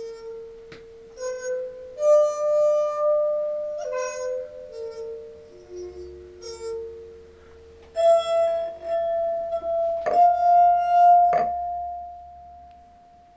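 A tune played on six wine glasses filled with water to different depths and tuned to notes: clear glass tones of several pitches, each note ringing for a second or more and often overlapping the next, with the last, highest note held and fading out near the end.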